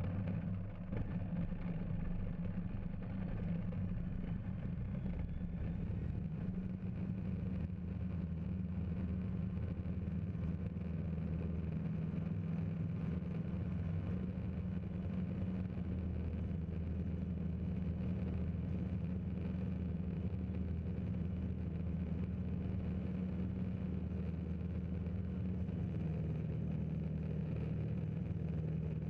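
Fly Synthesis Storch S ultralight's propeller engine running steadily at high power during the takeoff roll and climb-out, heard from inside the cockpit.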